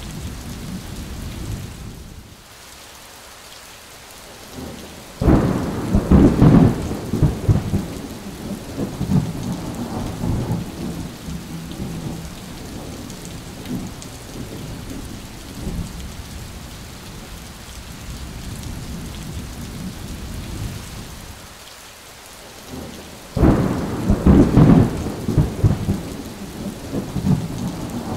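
Heavy rain falling steadily, with two claps of thunder: one about five seconds in and another near the end. Each starts with a sudden loud crack, then rumbles on for several seconds and slowly fades.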